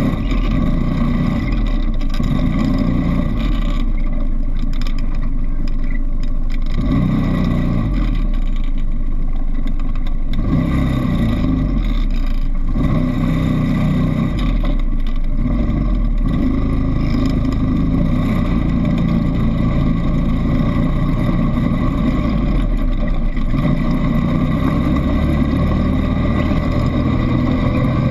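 ATV engine running under way on a dirt track, heard close up from a handlebar-mounted camera, with heavy low rumble; the engine note rises and falls with the throttle and climbs near the end.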